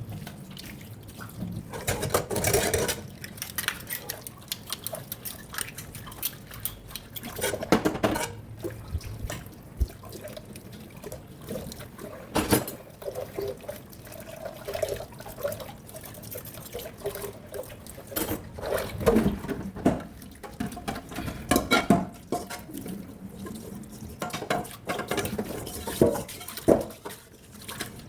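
Water running and splashing in a kitchen sink, with frequent clinks and knocks of kitchenware being handled in it.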